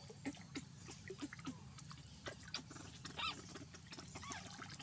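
Water splashing and dripping as macaques swim and a wet baby macaque is lifted out of the water. A few short high squeaks come about three seconds in and again near the end.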